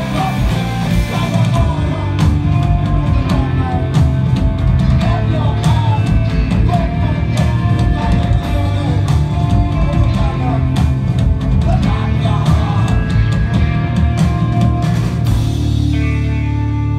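Live rock band playing: drums, bass and electric guitars with a male singer's voice over them. About fifteen seconds in the drums stop and the band's chord is left ringing.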